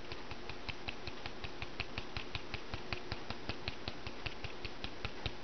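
Handheld plastic sieve shaken to sift flour, giving a rapid, even ticking of about eight clicks a second.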